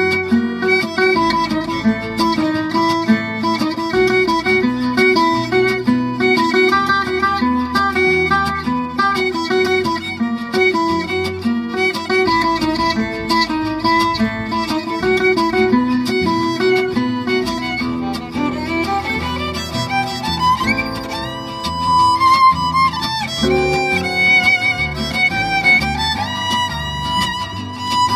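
Gypsy jazz quartet playing live: violin melody over two acoustic guitars' steady strummed rhythm and upright double bass. About twenty seconds in, the violin slides up to a long held note.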